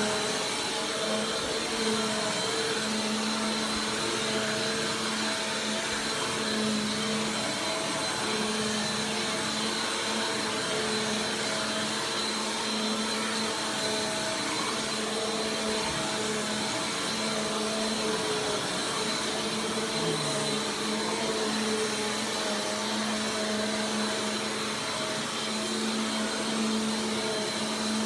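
Bissell PowerForce Compact Turbo 2690 upright vacuum cleaner running steadily: a constant motor hum and whine over a rush of air.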